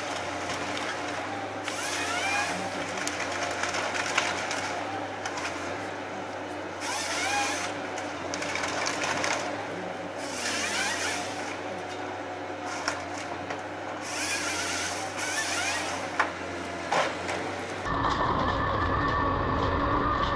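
Chainsaw cutting timber, revving up in repeated cuts a second or two long and dropping back between them. Near the end it gives way abruptly to a steady machine hum.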